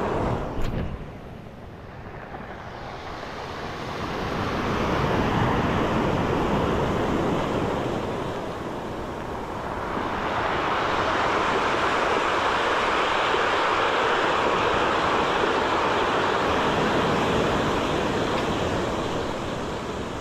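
Surf breaking and washing up a cobble beach, with a first surge building about four seconds in and a longer, louder wash from about ten seconds on.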